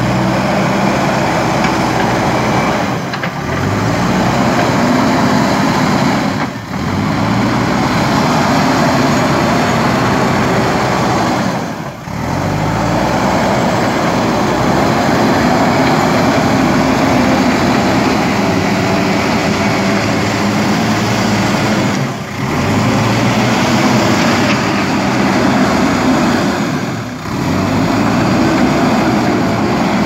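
JCB 3DX Super backhoe loader's diesel engine working under load as the machine pushes and levels dirt with its front bucket, its pitch rising and falling as the throttle changes. The sound briefly dips several times.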